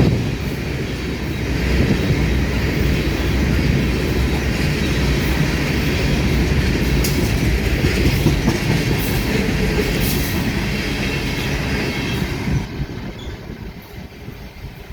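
CSX freight train rolling past at close range: a steady heavy rumble of railcar wheels with clickety-clack over rail joints and some wheel squeal. The sound drops away sharply about thirteen seconds in.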